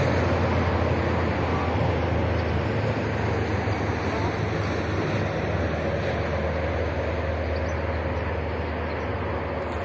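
Steady wind rumbling on the microphone outdoors, a continuous low buffeting hiss with no distinct events.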